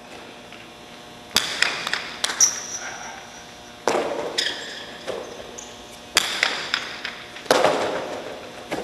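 Hard jai alai ball (pelota) cracking against the fronton's walls and floor during a rally, several sharp impacts a second or two apart, each ringing out in the big hall.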